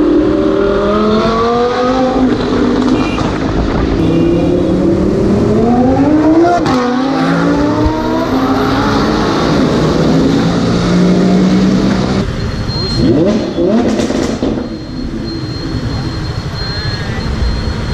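Lamborghini Huracan's V10 with an aftermarket Fi exhaust revving and accelerating, its pitch climbing in long sweeps and then dropping. The sound changes abruptly about twelve seconds in, followed by a couple of quick revs.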